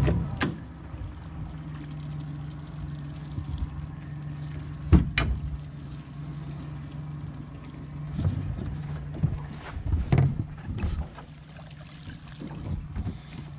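Crab pot being hauled up by its rope alongside a boat, with several sharp knocks against the boat, the loudest about five seconds in, and water pouring off the pot as it comes out near the end. A low steady hum runs underneath.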